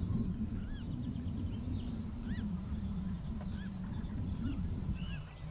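Birds calling in short rising-and-falling chirps, with a rapid high trill near the start and again near the end, over a loud, uneven low rumble.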